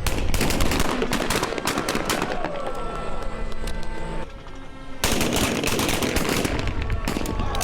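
Rapid, overlapping shotgun fire from several shooters, shot after shot with hardly a break, pausing briefly a little past four seconds in before the volley resumes.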